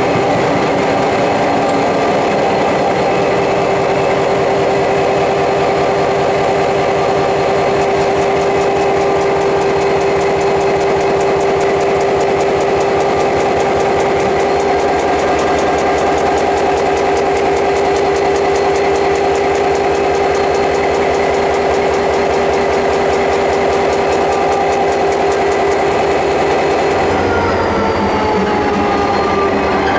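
Diesel locomotive engine running inside the engine room: a loud, steady drone with a strong, even hum. Near the end the low rumble shifts and a whine falls in pitch.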